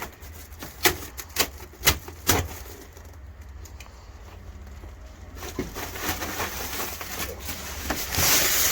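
A bag of chicken layer feed being handled: a run of sharp clicks and rustles, then from about halfway a hiss that builds as the feed crumbles start pouring out.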